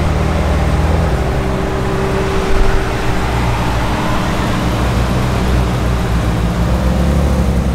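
Ferrari 458's V8 engine running at low revs as the car rolls slowly past close by, a steady low rumble.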